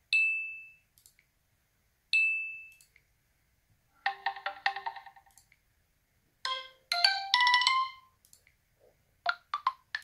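LG Q7 smartphone playing its built-in ringtone and alert tones through its speaker, each one short and cut off before the next, with silences in between. First come two single high pings about two seconds apart, each fading out within a second. Then a short chime of several notes, a quick run of marimba-like notes, and three quick notes near the end.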